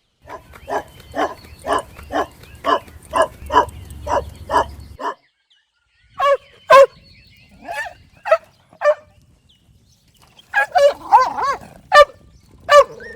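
Golden retriever puppy barking in short, high yips, about two a second at first, then in scattered bursts with two pauses and a quicker cluster near the end.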